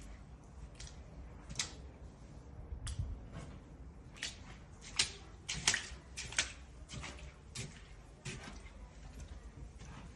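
Shallow floodwater on an office floor splashing: about a dozen sharp, irregular splashes.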